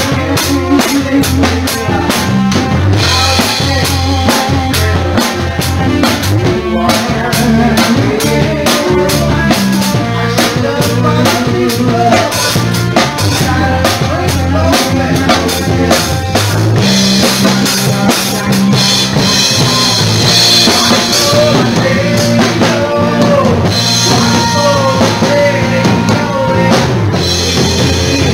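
A rock band playing loudly: a drum kit with frequent bass drum and snare hits, electric bass guitars through a Fender amplifier, and a woman singing into a microphone.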